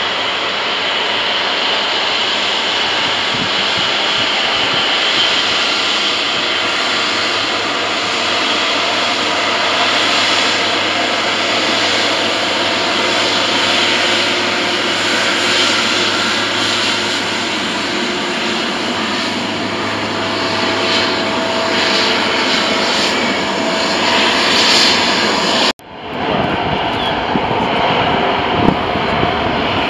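Boeing 777 jet engines at taxi power as the airliner rolls past close by: a steady jet rush with a faint whine. About 26 s in the sound cuts abruptly to another twin-engine jet airliner, a Boeing 737, taxiing at low power.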